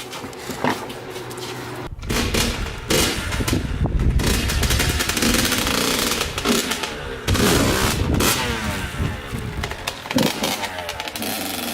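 Yamaha YZ85's 85cc two-stroke single-cylinder engine running through an FMF Powercore 2 shorty exhaust, loud and rapid-firing, revving up and down from about two seconds in.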